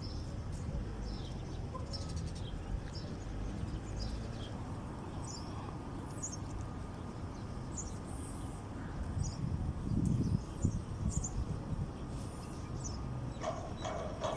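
Outdoor ambience: small birds chirping in short, scattered calls over a steady low rumble, with a louder swell of rumble about ten seconds in. Near the end a run of quick ticks begins.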